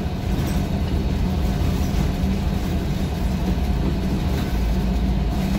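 City bus driving along a snow-covered street, heard from the driver's seat: a steady low rumble of engine and road noise.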